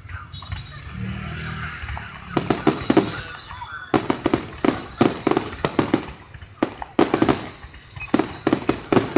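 New Year aerial fireworks going off in rapid volleys of bangs and crackles. They start a couple of seconds in, with short gaps between volleys.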